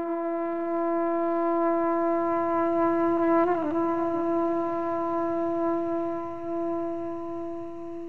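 Soundtrack music: one long held note, rich in overtones, with a brief waver about three and a half seconds in, fading near the end.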